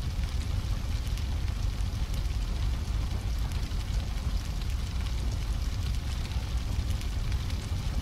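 Big car explosion sound effect: a steady, deep rumble with scattered crackles on top, holding level throughout with no single sharp blast.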